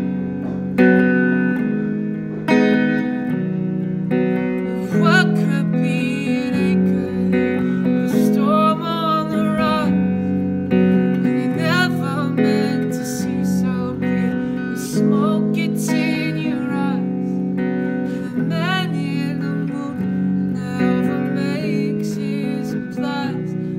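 Solo Les Paul-style electric guitar played through a small amp in an instrumental passage: slow, ringing chords, with high notes sliding in pitch over them several times.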